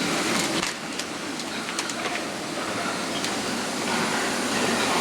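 Steady din inside an indoor pig shed, with pigs and their metal pens. A few sharp clicks and clanks come through it, the first a little over half a second in.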